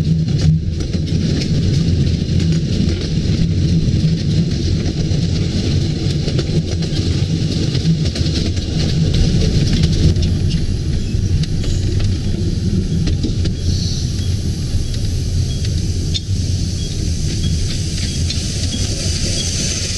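Steady rumble and rattle of a 15-inch-gauge railway train running along the track, heard from aboard a carriage.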